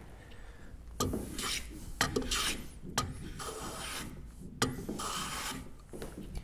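Hand jointer plane taking shavings along the edge of a wooden wedge blank, trueing it straight: about four strokes roughly a second apart after a quiet first second. Each stroke starts with a sharp click as the iron bites, then a short hiss of the cut.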